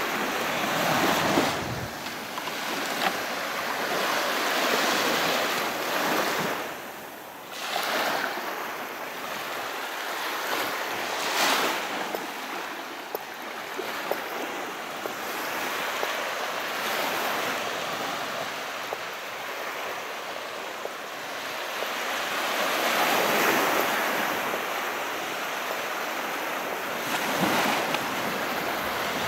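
Calm sea surf: waves washing in and drawing back as a steady hiss that swells and eases every few seconds.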